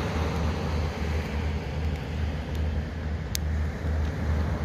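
Steady outdoor background noise: a low, unevenly pulsing rumble under a hiss, with one sharp click a little over three seconds in.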